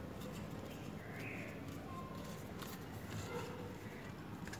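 Faint, irregular clicks and scrapes of a plastic drinking straw stirring thick slime in a clear plastic cup, over a low steady background hiss.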